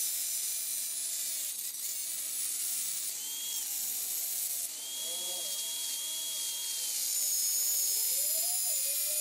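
Angle grinder running with a cutoff disc, cutting through a brass pipe nipple, with a steady high hiss. The motor's pitch wavers up and down as the disc bites into the brass.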